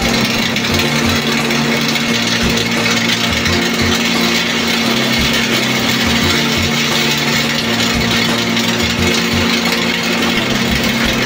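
Electrogas welding arc burning steadily on a vertical steel seam: a continuous, dense crackling hiss over a constant low electrical hum from the welding equipment.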